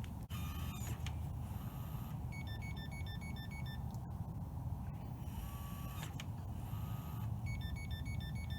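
Yale Assure smart lock's motor whirs briefly, followed by a rapid run of short electronic beeps, and the pattern comes twice. It is the lock's response to being locked from the keypad before the multipoint door handle has been lifted, an error that needs fixing by re-entering the code.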